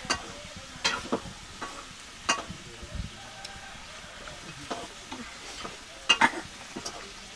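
Stainless steel plates clinking and scraping as rice is mixed and eaten by hand: a scatter of sharp, short clinks over a faint hiss, with the loudest pair about six seconds in.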